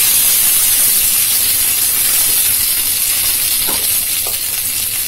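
Mustard seeds and curry leaves sizzling in hot mustard oil in a pan: a steady frying hiss that eases slightly towards the end.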